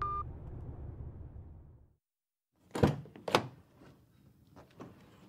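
Sound-effect foley: a short electronic beep, a low rumble that fades out over about two seconds, then two dull thunks of a car door about half a second apart and a few lighter knocks.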